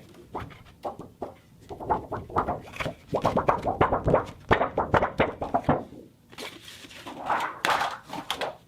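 Plastic sheet crinkling and crackling as it is handled, in irregular flurries of crisp snaps. The snaps come thickest from about three to six seconds in, with another loud flurry near the end.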